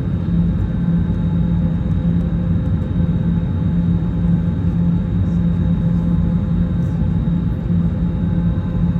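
Steady drone of an Airbus A321neo's Pratt & Whitney PW1133G geared turbofan engines heard inside the cabin: an even low hum with a faint steady high whine over it.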